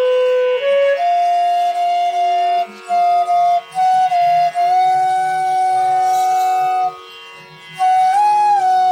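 Bansuri (bamboo flute) playing a slow melodic phrase to test its notes: a few short notes, a long held note in the middle, a pause of about a second, then a slide up and back down near the end. A steady drone sits beneath.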